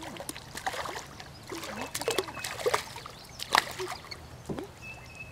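A small hooked common carp splashing at the water's surface as it is reeled in and lifted out beside a canoe, with scattered light knocks and clicks.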